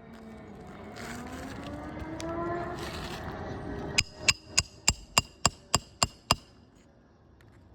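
A rising hum, then a roofing hammer striking nine quick blows, about three a second, each with a short metallic ring, as a nail is driven into the new shingle.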